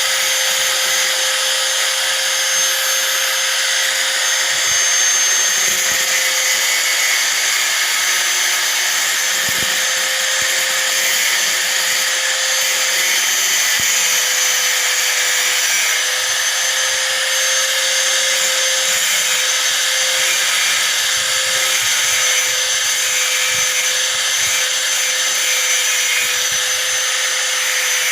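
Hand angle grinder running steadily under load, its disc grinding down a rusty steel nail, with a high-pitched whine over a hiss of abrasion.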